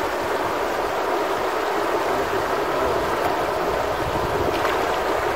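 Shallow river water rushing over a stony riffle: a steady, even rushing.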